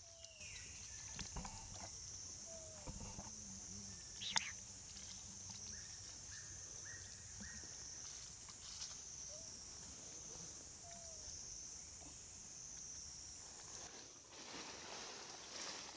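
Faint outdoor ambience: a steady high-pitched hum with a few short animal calls, a quick run of four short notes, and one sharp click about four seconds in.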